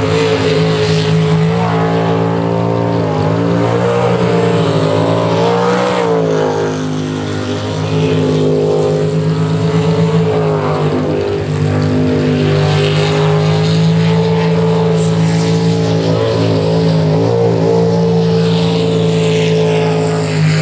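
Jet sprint boat engine running hard through a twisting course. Its pitch dips and rises again several times as the driver backs off and pushes on through the turns.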